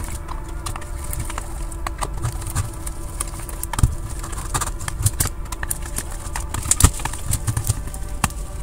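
Scattered small clicks and taps of a screwdriver and metal parts being handled as the heatsink screws on an Xbox motherboard are undone, over a steady low hum.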